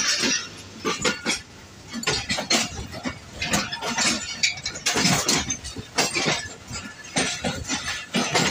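Passenger coaches of a train passing close alongside on the next track, with irregular clanking and rattling of wheels and running gear over the rails.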